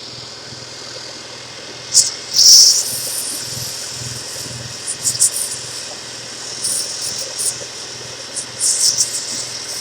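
Small electric air pump and vacuum running with a steady hum, broken by short bursts of hissing air, loudest about two and a half seconds in and again near the end, as they blow and suck iron filings and dirt out of a radio chassis.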